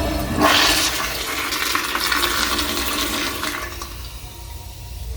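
American Standard toilet flushing: a loud rush of water surges about half a second in, runs for about three seconds, then fades away over the last second or so.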